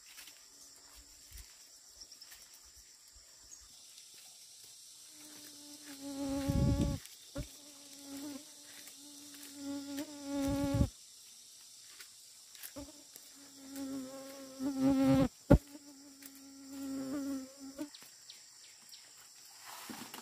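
A flying insect buzzing close by in two spells of several seconds each, one steady tone with many overtones, over a steady high chirring of insects. A few dull thumps come in between, the loudest about two-thirds of the way through.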